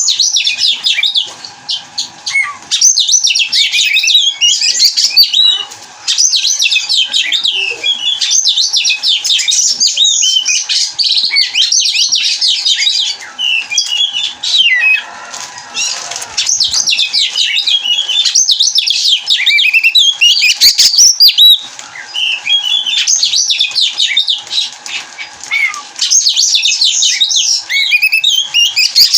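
Oriental magpie-robin (kacer) singing a long, rapid, varied song of quick high notes, in bouts broken by short pauses.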